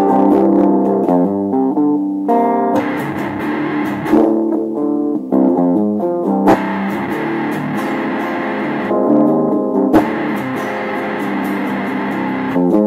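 Improvised noise-style guitar music: quick runs of plucked notes, broken by three stretches of a denser, harsher, distorted-sounding texture.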